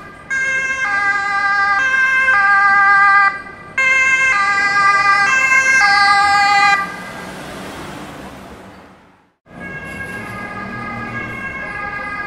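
Austrian emergency vehicle's two-tone siren, switching between a high and a low pitch about every half second, loud and close, with street noise beneath. About seven seconds in the siren cuts out and the traffic noise fades away to a brief silence, then the siren comes back quieter and more even.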